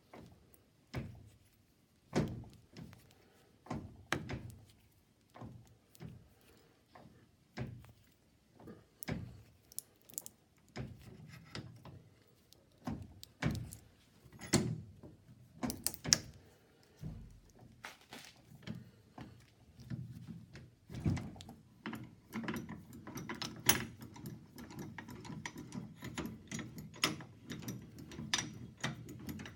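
Mobile phone being crushed in a press: irregular sharp cracks, clicks and knocks of breaking glass and plastic, coming closer together with a low rumble and steady crackling from about two-thirds of the way through.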